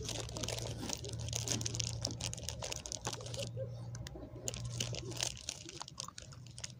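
Plastic food packaging crinkling as it is handled, a dense run of crackles that thins out about halfway through, over a steady low hum.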